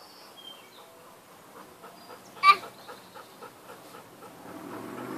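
Dog panting in quick, even breaths, with one short, sharp, high squeak about halfway through. A rush of passing-vehicle noise starts to swell near the end.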